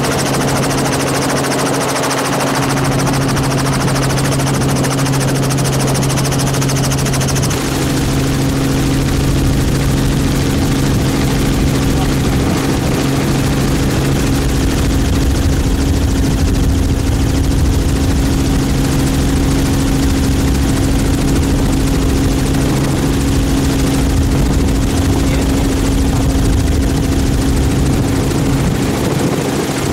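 Helicopter in flight, its rotor and turbine engine making a steady drone with a deep rumble and a constant hum. About seven seconds in, the higher hiss drops away and the low rumble grows stronger.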